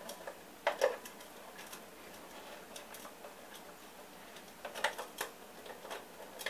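A few light clicks and knocks from handling a small plastic food chopper overstuffed with graham crackers, with no motor running: one knock about a second in and a short run of clicks about five seconds in.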